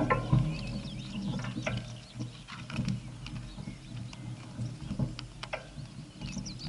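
Bicycle freewheel and chain ticking and rattling in irregular clicks over a low steady rumble.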